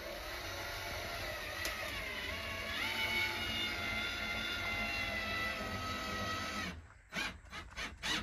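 Hand-held power drill running steadily, its motor pitch dipping about two seconds in and then rising again as the bit takes and frees, before it stops near the end.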